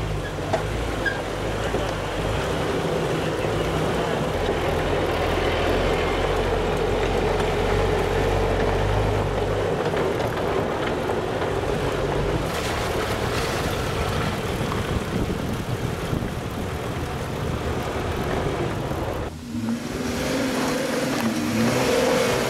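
Jeep driving off-road, its engine running with a steady low rumble under a rough wash of noise. Near the end the noise drops briefly, and then a wavering pitched sound comes in.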